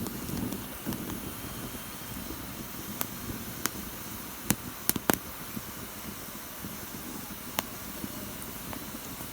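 Fireplace fire burning with a steady hiss and sharp, irregular crackles and pops, a cluster of several loud pops near the middle.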